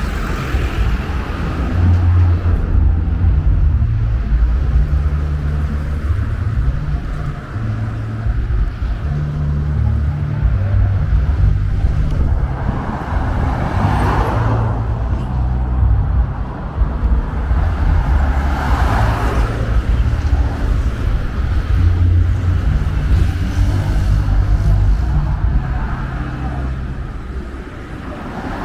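Road traffic: cars and a van passing one after another along a busy city road, over a steady low rumble. The loudest pass-bys swell and fade about halfway through and again a few seconds later.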